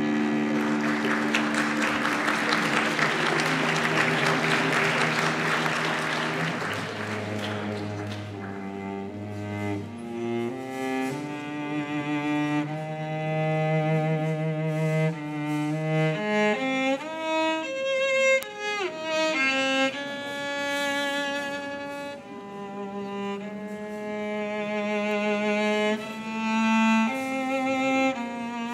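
Solo cello playing a slow melody of long, sustained notes with vibrato, sliding between pitches now and then. A hissing wash of noise sits under it for about the first eight seconds.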